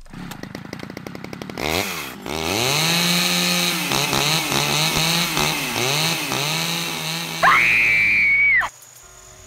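Chainsaw engine running with a fast even ticking, then revved up and down several times. Near the end a loud, high, held note lasts about a second and cuts off suddenly.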